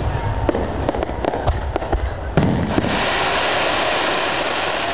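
Fireworks display: aerial shells bursting with a rapid string of bangs and pops, then a heavier boom about two and a half seconds in, followed by a sustained loud hiss.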